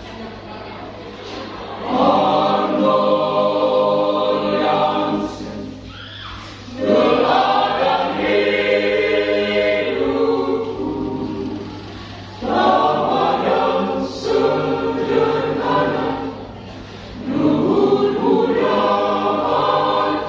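Choir singing in four long phrases that swell loud and then fall back between them, over a steady low hum.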